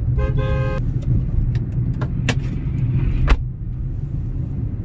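Steady low engine and road rumble inside a moving car's cabin. A short vehicle horn honk sounds near the start, and two sharp clicks or knocks come about a second apart in the middle.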